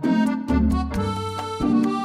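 Background music with a steady beat: bass notes struck about twice a second under held melody notes.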